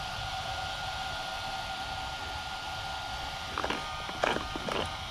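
A small electric cooling fan running with a steady whirring whine, with a few clicks and knocks of the car being handled about three and a half to five seconds in.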